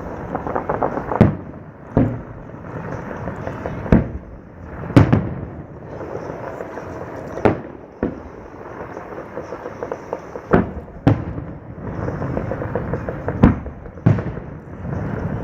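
Aerial fireworks display: shells bursting in sharp booms, about ten of them, every second or two, with crackling between the bursts.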